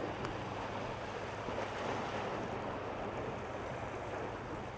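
Small sea waves washing against a rocky shore: a steady, even surf hiss.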